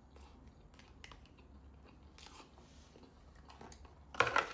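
Close-miked mouth sounds of eating crispy fried chicken nuggets: quiet chewing clicks, then a loud crunchy bite near the end.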